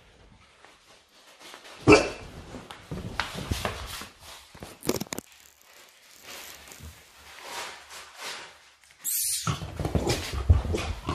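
A dog barking in play, with one sharp, loud bark about two seconds in, scattered shorter sounds after it, and a busier, louder stretch near the end.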